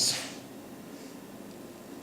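The tail of a spoken word, then quiet room tone with a faint steady hum.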